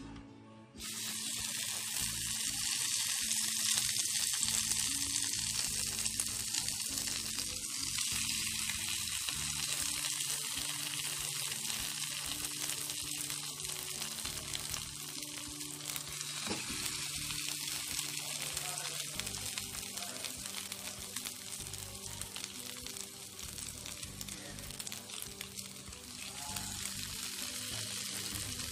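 Egg-dipped masala bread slices sizzling in melted butter on a hot dosa tawa. The steady frying hiss starts suddenly about a second in.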